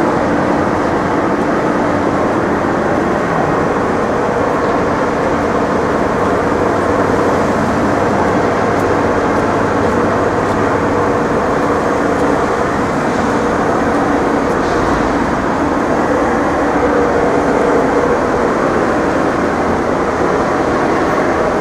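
Continuous, steady vehicle rumble and hum, with a low hum tone that fades out about halfway through.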